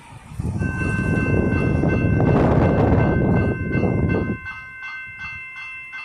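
Railway level crossing warning bell starts ringing about half a second in, a steady repeating ding of about three strikes a second, warning that a train is approaching. A loud rumbling noise sits under the first four seconds.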